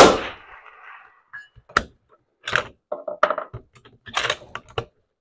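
A single rifle shot from a scopeless-sounding bench-rested .308 Win bolt-action rifle firing a factory round, a sharp crack with a decaying tail; then, from about a second and a half in, a run of metallic clicks and clacks as the bolt is worked to eject the case and chamber the next cartridge.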